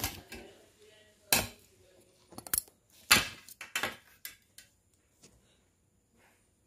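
Irregular knocks and clatters of small hard objects being handled on a desk, a dozen or so in all, the loudest about a second and a half and three seconds in, dying away after about five seconds.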